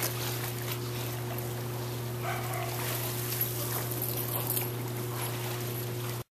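A dog paddling and splashing in a swimming pool, with a short dog whine about two seconds in, over a steady low hum.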